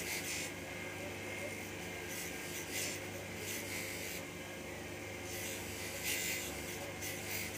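Belt-driven buffing machine running with a steady hum while a steel scissor blade is pressed against its spinning cloth buffing wheel, giving a hissing rasp that surges several times as the blade is worked across the wheel.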